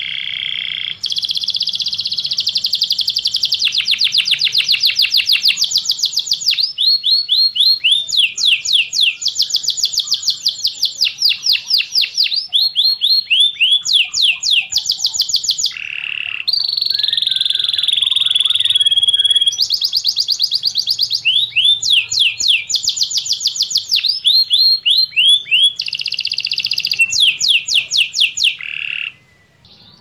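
Domestic canary singing a long, loud song of rapid repeated trills and rolls, about five notes a second in the fast passages, with a short break about halfway. The song stops shortly before the end.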